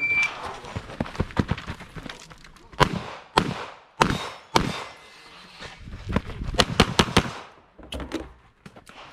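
Electronic shot-timer start beep ending at the very start, then a competitor's string of handgun shots with short echoes. There are single shots about half a second apart, then a quick cluster of five or six shots about six to seven seconds in.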